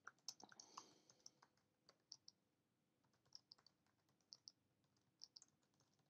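Faint, irregular keystrokes on a computer keyboard as a line of text is typed.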